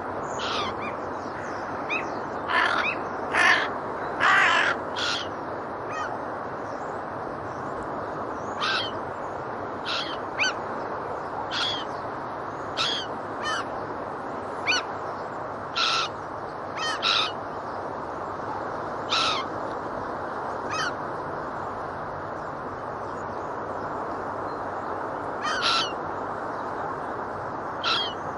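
Gulls and geese calling: short, separate calls scattered through, clustered most thickly about three to five seconds in, over a steady rushing background.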